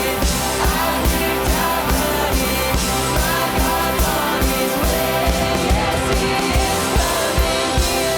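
Live contemporary worship band playing a song, with sustained instruments, a steady kick-drum beat about twice a second, and singing.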